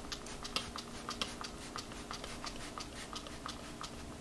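Hand spray bottle squeezed over and over, short spritzes at about three a second, as insecticide is sprayed into a window-frame crack. A faint steady hum lies underneath.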